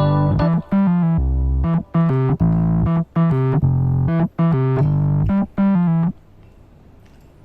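Background music on electric piano or synthesizer keyboard: rhythmic chords with short breaks between phrases. It stops about six seconds in, leaving only faint low noise.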